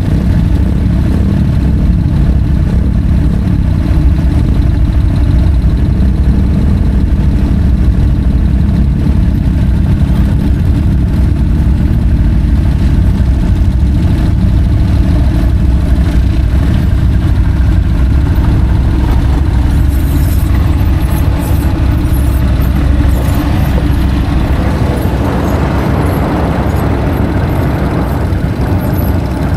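ATV engine running steadily at low revs, a constant low drone, with some light clicks and rattles about twenty seconds in.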